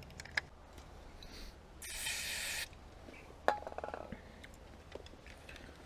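Small clicks from handling the opened window master switch, then a short hiss of spray lasting under a second about two seconds in, consistent with cleaning out moisture and corrosion. About a second later comes a sharp click followed by a quick rattle of small clicks.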